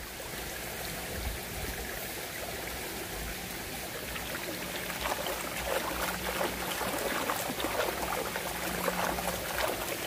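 Shallow mountain stream trickling over rocks while a rag is scrubbed by hand in the water, the splashing growing busier about halfway through.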